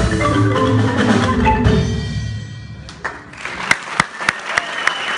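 Marimba band finishing a piece: the last mallet notes ring and die away over the first two seconds. Then, about three and a half seconds in, sharp evenly spaced clicks begin, roughly three a second.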